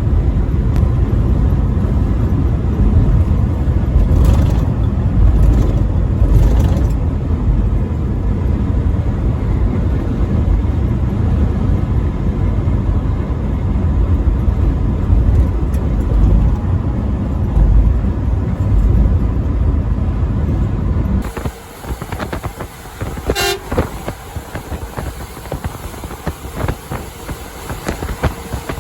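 Truck on the road, with loud, steady, deep road and engine rumble and a vehicle horn tooting. The rumble cuts off abruptly about 21 seconds in and gives way to a quieter, thinner sound.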